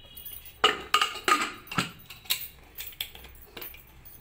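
Aluminium pressure cooker clinking and knocking as its lid is fitted and closed, a string of sharp metal taps, some with a short ring.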